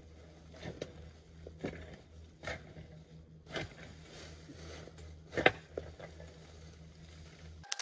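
Hands scooping and scraping soil and rotted leaf mulch into a planting hole, with irregular scrapes and crackles of dry leaves, the sharpest about five and a half seconds in.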